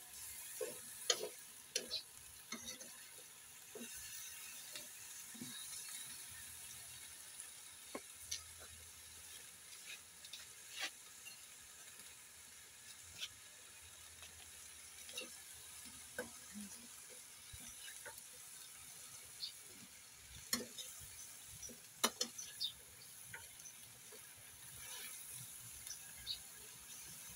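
Vegetables and pork sizzling faintly in a metal wok, a steady high hiss. A metal spoon stirs and knocks against the pan now and then, giving sharp clicks and scrapes, with a cluster near the start and another about three-quarters of the way through.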